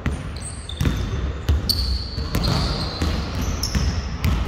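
Basketball bouncing on a gym court in irregular thuds, with several short high squeaks of sneakers on the floor, all echoing in a large hall.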